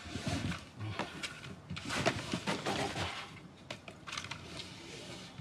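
Rolled paper and canvas rustling and crinkling as rolls are pulled down from a crowded high shelf, with scattered knocks and crackles; the rustling is loudest about two to three seconds in.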